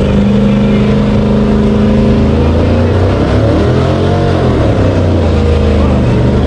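Car engine held at high revs in a burnout. It runs steady at first, then its pitch climbs and falls back a few seconds in, and settles again near the end.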